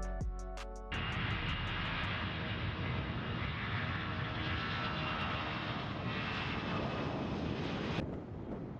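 Jet engines of a C-17 Globemaster III running on the runway: a steady rush with a faint high whine, starting about a second in as a short bit of music ends. Near the end it cuts to a quieter, thinner rumble.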